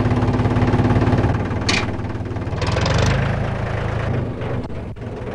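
An engine idling steadily with an even low throb.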